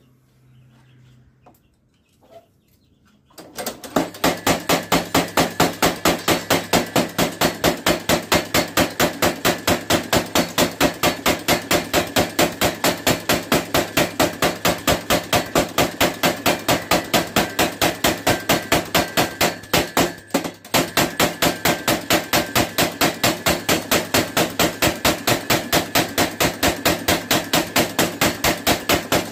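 Power hammer pounding a heated steel bearing outer race in rapid, even blows, drawing it out into a knife blank. The hammering starts a few seconds in and breaks off briefly about two-thirds through.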